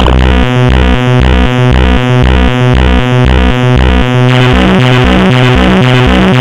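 Loud electronic synthesizer music with a repeating bass pattern; the sound thins and changes about four seconds in.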